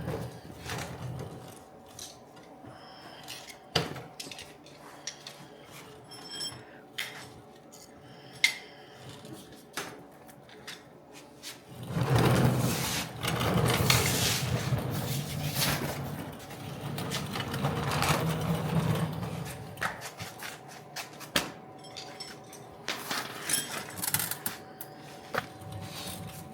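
Scattered metal clinks and knocks of hand tools and steel hardware. Near the middle, an electric drill runs in two stretches of a few seconds each.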